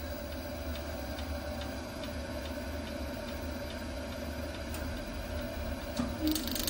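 Baxi Solo HE gas boiler's ignition electrode sparking, a regular ticking about twice a second over a low steady hum, during a test firing with its electrode lead wrapped in electrical tape as a temporary repair. A short hiss comes just before the end.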